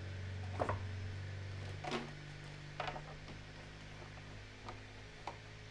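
Plastic clicks and knocks as a filter is seated in an air purifier and its slatted front grille is pressed into place, about five separate clicks spread over a few seconds. A steady low hum runs underneath.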